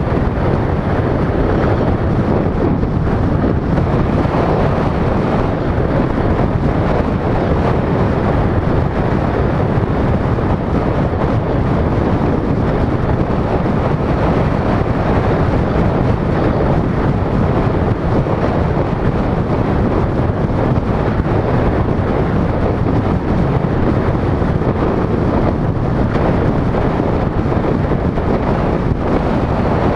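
Steady wind noise on a GoPro's microphone mixed with the road and tyre noise of a car driving along at a constant pace.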